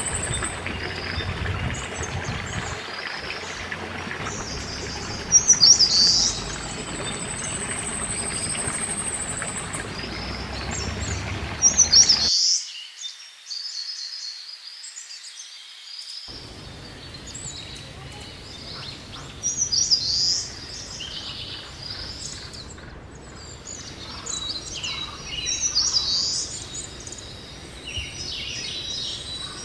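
Birds chirping and singing, with a few loud chirps, over the steady rush of a small babbling stream. About twelve seconds in the stream noise drops away and the birdsong goes on against a quieter background.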